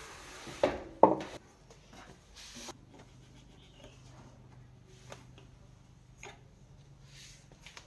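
Handling sounds: two sharp knocks about a second in, then scattered light clicks, rubbing and scraping, over a low steady hum that runs through the middle few seconds.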